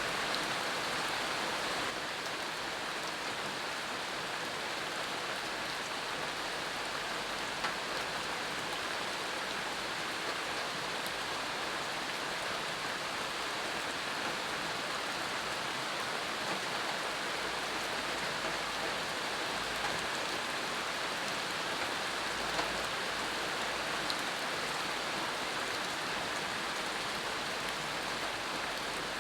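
Steady rain falling, an even hiss with a few faint single drop ticks.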